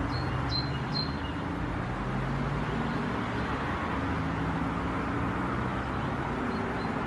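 Steady outdoor background noise with a low hum, like distant road traffic, and three short high chirps in the first second.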